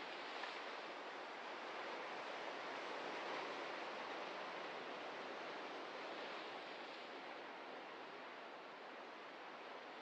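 Ocean surf washing ashore, a steady rush of waves that swells a little a few seconds in and eases slightly near the end.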